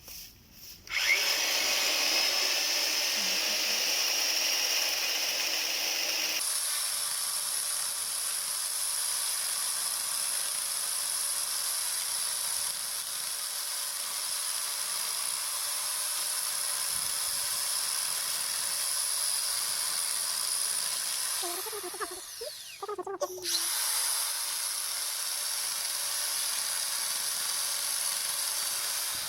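16-inch electric chainsaw starting about a second in and running steadily with a high-pitched whine. It stops briefly a little over 20 seconds in, then starts again.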